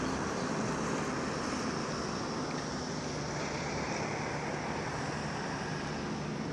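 A motor vehicle running and driving off, its steady engine hum and road noise slowly fading.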